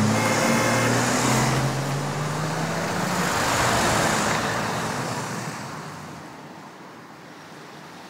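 A car drives past close by: its engine hum and tyre noise come in loud at once, swell over the first few seconds and then fade away.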